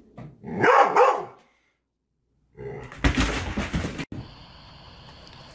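A dog barking twice, loud, about a second in. After a short silence comes a loud burst of noise lasting about a second and a half that cuts off suddenly.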